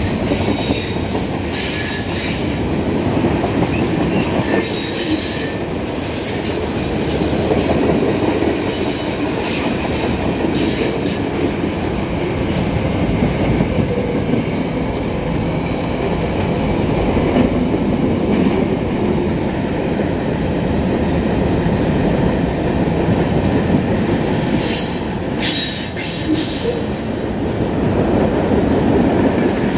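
Freight cars of a long CN freight train (tank cars and hoppers) rolling past, a steady heavy rumble of steel wheels on rail. Brief high-pitched wheel screeches rise out of it several times, most of all near the start and again about 25 seconds in.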